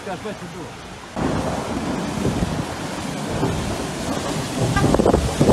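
Loud, steady rushing of heavy rain and running floodwater, with a deep rumble of wind buffeting the phone's microphone. The noise jumps up abruptly about a second in and swells near the end.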